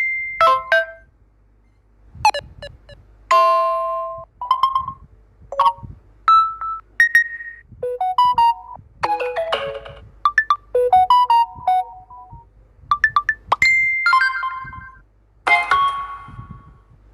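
Samsung Galaxy M31 phone tones: about a dozen short electronic chimes and jingles, each a different tune, played one after another with brief gaps between them.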